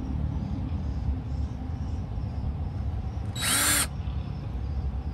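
DeWalt XR cordless drill run in one short burst about three and a half seconds in, its motor pitch rising and falling back as it drills a mounting hole. A steady low rumble sits underneath.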